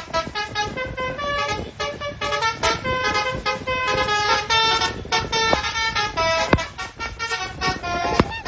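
Basuri musical bus horn playing a quick tune of short stepped notes, with a few bending notes near the end.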